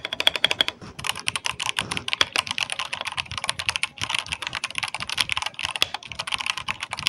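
Fast typing on a Redragon K641B Shaco aluminium mechanical keyboard with Outemu switches, resting on a desk pad: a dense run of keystroke clacks with a brief pause about a second in. The sound is not pingy, the foam inside keeping down the hollow ring common in aluminium keyboards.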